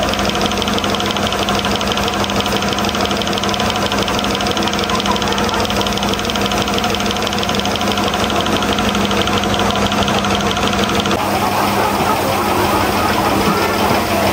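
A motor running steadily at an even pitch, with a fast, high rattle over it that drops away about eleven seconds in.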